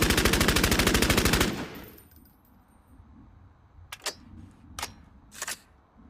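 Thompson submachine gun (Tommy gun) firing a long fully automatic burst of rapid, evenly spaced shots that stops about a second and a half in, its echo trailing off. Three short sharp sounds follow, less than a second apart, near the end.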